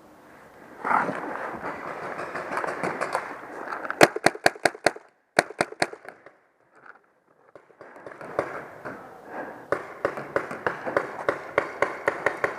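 Paintball marker firing: a fast burst of loud sharp pops about four seconds in and a few more just after, then a steady string of sharp pops at roughly three a second in the last few seconds, over a rustling haze.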